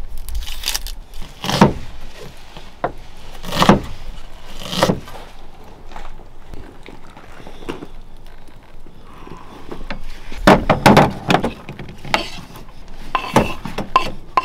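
Close-up food-preparation sounds: dry onion skin peeled off, a knife slicing raw salmon, and chopped greens scraped from a wooden cutting board into a pan. These come as scattered knocks, scrapes and rustles, with a cluster of louder knocks about ten seconds in.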